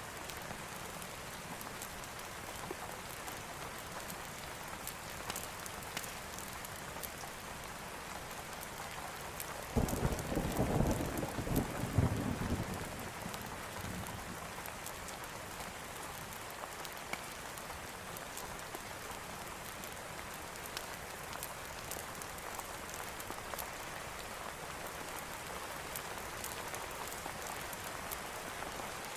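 Steady rain falling, with a roll of thunder about ten seconds in that rumbles for around three seconds, the loudest part.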